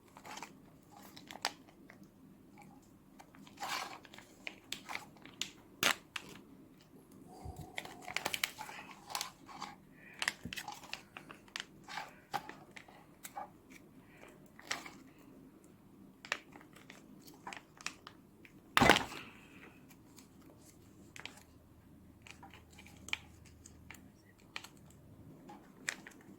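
Plastic toy packaging being handled, torn open and crinkled: scattered small crackles and clicks, with one louder crackle about nineteen seconds in.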